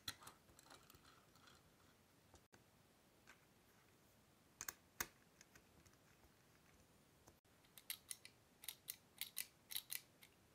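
Faint, sharp metallic clicks and taps from small aluminium parts and screws being fitted by hand with a hex key: a few scattered clicks, then a quick run of clicks over the last few seconds.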